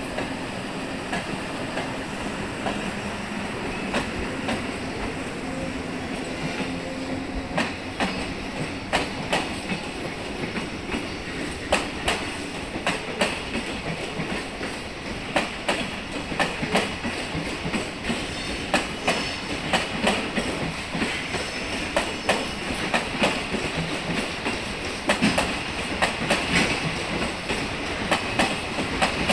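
JR East E257-5000 series electric train pulling slowly into the platform, its wheels clicking over rail joints and points. A low steady hum is heard for the first several seconds; from then on the clicks come sharper and more often as the train draws closer.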